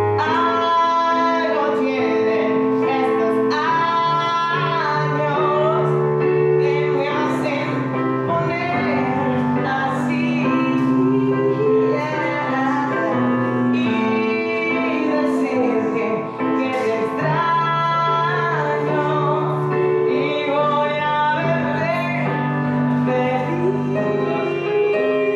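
A woman singing a song over Casio Privia digital piano accompaniment, piano and voice only. Her long held notes carry vibrato over sustained piano chords.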